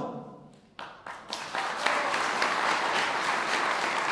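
Audience applauding: a few scattered claps about a second in, quickly building into steady applause.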